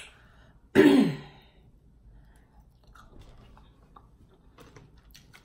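A person eating boiled crawfish close to the microphone: a sharp crack at the start, a loud slurp about a second in with a voiced sound falling in pitch, then quiet chewing with small clicks.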